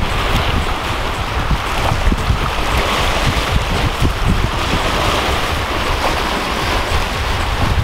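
Choppy waves breaking and washing over the rocks at the water's edge, with wind buffeting the microphone as a steady low rumble.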